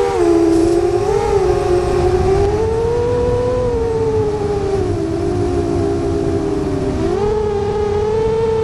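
DJI FPV drone's four motors and propellers whining in flight, several close tones gliding up and down together as the throttle changes, over a low rush of propeller wash and wind.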